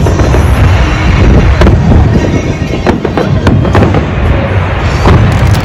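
Fireworks display going off: a rapid, irregular run of sharp shell bursts and crackles over a continuous deep rumble of booms, with music playing underneath.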